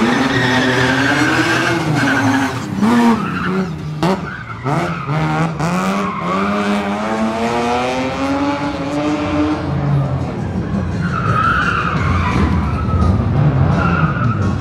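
Rally car engine revving hard, its pitch rising and falling again and again as it accelerates and lifts through a tyre chicane, with a few sharp cracks in the first half. Tyres squeal in the second half.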